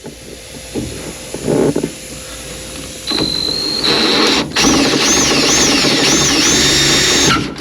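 Electric drill motor whining from about three seconds in, its pitch climbing and wavering up and down as the trigger is worked, while it drills through stainless steel window trim; it stops shortly before the end.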